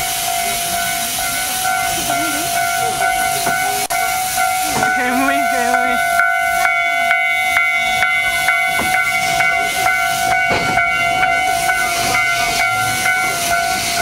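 Small steam train running: a steady hiss with a high, unchanging whistle-like tone, and from about six seconds in a regular clicking about twice a second.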